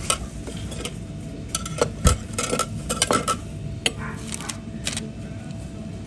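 Restaurant dishes and cutlery clinking: a run of sharp clinks and taps starting about a second and a half in, then a few more around four to five seconds in, over a faint steady hum.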